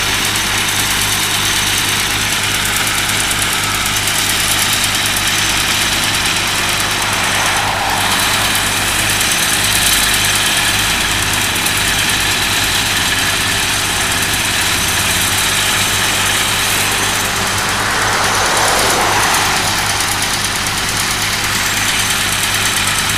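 Heavy diesel equipment at a dirt-screening site running steadily: a Cat 311D excavator's engine working as it feeds a screener, a constant low engine hum under a rattly hiss.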